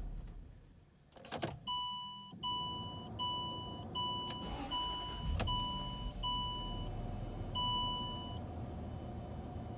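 Land Rover LR3's dashboard warning chime sounding eight times in a steady repeating pattern over about seven seconds. It starts after a click as the key is worked, and a low engine rumble runs underneath as the truck is started after its crankshaft position sensor replacement.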